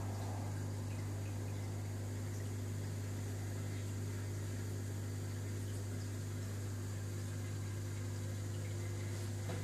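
Steady low electrical hum of reef-tank water pumps, with a faint wash of circulating water.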